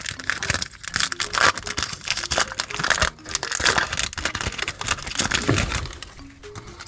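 Foil booster-pack wrapper crinkling and tearing as it is ripped open by hand, then rustling as the cards are drawn out; it dies down near the end.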